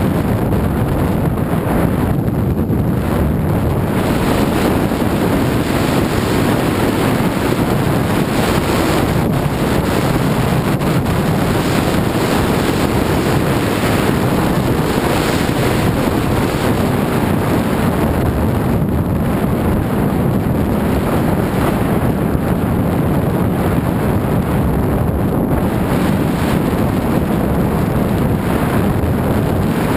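Steady rush of wind buffeting a point-of-view camera's microphone during a fast downhill ski run, mixed with skis running over groomed snow.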